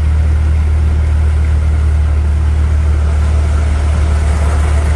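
A motor vehicle's engine running steadily, a loud constant low hum over an even wash of noise.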